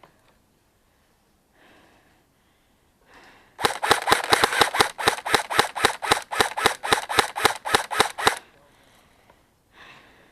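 Airsoft gun firing a rapid string of single shots, about five a second, for about five seconds before stopping.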